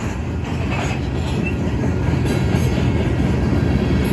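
Freight train of covered grain hopper cars rolling past, a steady low rumble and clatter of steel wheels on the rails that grows slightly louder.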